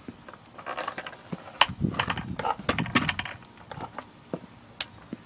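Clicks and clattering of a homemade air rifle being handled and readied for filling with compressed air. Most of the clicks come in a cluster from about one to three seconds in, with a few single clicks after.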